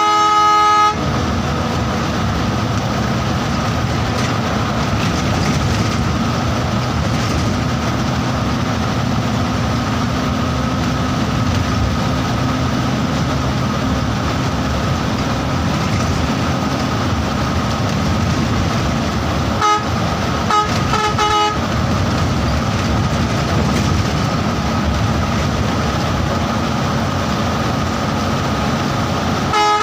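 Steady running noise of a moving bus, engine and road together, with a vehicle horn: one blast about a second long at the start, then a quick run of short honks about two-thirds of the way through.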